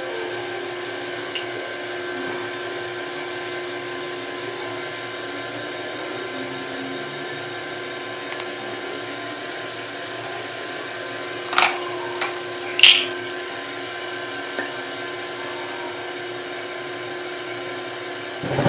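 A steady mechanical hum with several constant tones, broken by a few short knocks about two-thirds of the way through.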